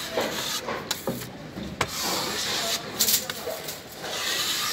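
Putty knife scraping and smoothing gypsum putty over a taped joint on fire-rated gypsum board, in several strokes with a few sharp clicks of the blade between them.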